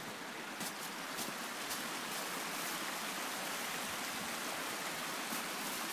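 Steady rushing of a flowing stream, with a few faint clicks.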